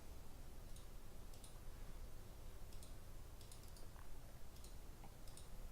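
Faint computer mouse clicks, a scattered handful with a few in quick clusters, over a low steady room hum.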